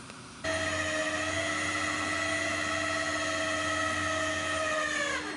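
Rollback tow truck's hydraulic winch running steadily as a high whine, pulling the car up onto the tilted bed; its pitch drops as it winds down and stops near the end.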